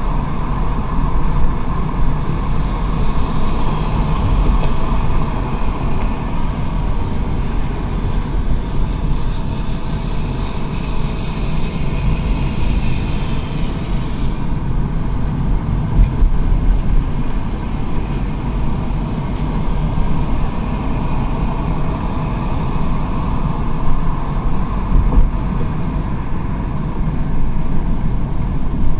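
Steady road noise inside a moving car on a wet road: a low rumble of engine and tyres with a continuous hiss. A louder high hiss builds for a few seconds and stops suddenly about halfway through.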